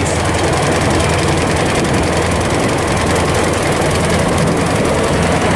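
Forage harvester running in maize, a steady, loud heavy-engine drone with a constant low hum.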